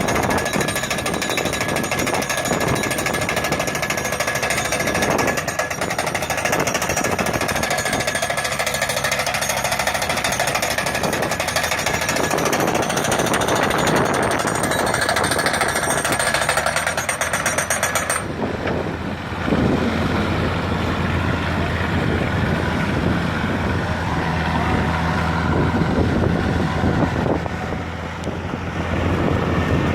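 A machine running with a rapid, continuous hammering rattle that changes abruptly about two-thirds of the way through to a lower, steady hum.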